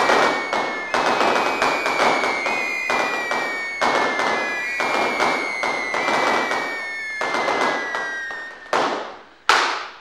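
Explosion sound effect: a rapid barrage of sharp cracks and bangs, like a string of firecrackers, with a high tone sliding slowly down behind it that starts over several times. Two last bangs come near the end before it cuts off.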